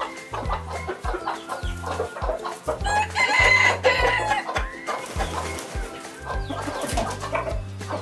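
Chickens clucking and a rooster crowing once, the crow the loudest thing, about three seconds in, over background music with a steady, repeating bass line.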